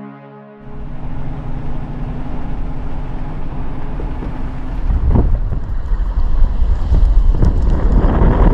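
Wind buffeting the microphone: a dense, rumbling noise that grows louder about five seconds in. A synthesizer music intro cuts out in the first second.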